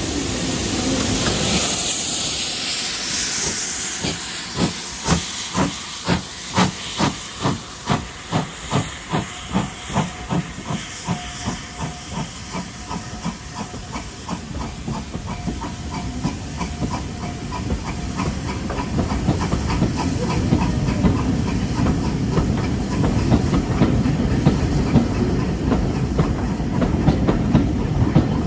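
Steam locomotive passing beneath with a loud hiss of steam, then its exhaust beats at about two a second, fading as it draws away. The coaches' wheels follow, rumbling and clacking over the rail joints and growing louder near the end.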